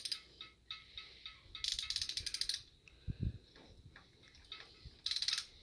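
Hand socket ratchet clicking in quick runs as bolts are turned on an aluminium adapter plate on a Cummins diesel block: a run of rapid clicks about a second long near two seconds in and a shorter run near the end, with scattered lighter ticks between. A dull knock comes about three seconds in.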